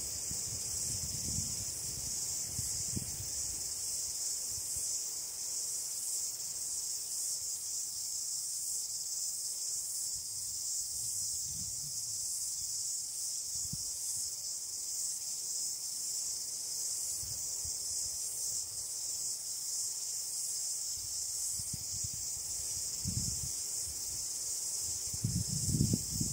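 Steady high-pitched insect chorus, with scattered faint low knocks and rustles. A louder low rustling starts near the end.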